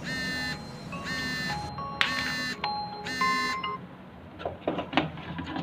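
A short electronic melody of four bright, buzzy tones at changing pitches, followed by a few light sharp clicks.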